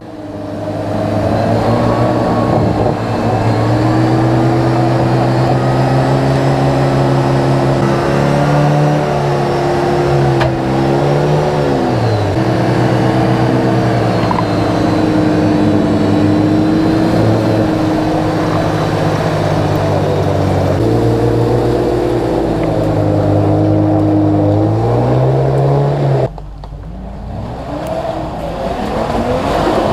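Off-road 4x4 engine running at high revs under load, its note mostly held steady, dropping and climbing again around the middle. Near the end the sound cuts off suddenly, and the engine note then climbs again more quietly.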